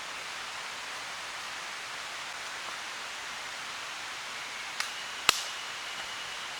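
A steady outdoor hiss with two sharp clicks about five seconds in, the second one louder.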